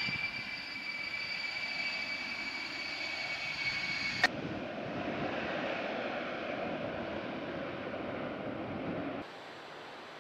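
Il-76 jet transport's turbofan engines flying past low: a steady high-pitched whine over a rushing noise. About four seconds in the sound cuts with a click to a deeper, even jet rush, which stops suddenly near the end.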